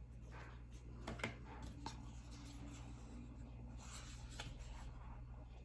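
Faint rubbing and scraping of a cardboard product box being handled and opened, with a couple of small clicks about one and two seconds in.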